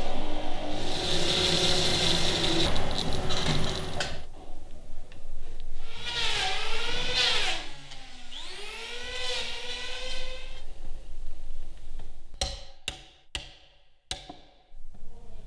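Woodworking power tools on timber: a tool cutting with a dense rasping noise, then a motor whose pitch dips and climbs as it changes speed, like an electric planer spinning up and cutting. A few sharp knocks near the end.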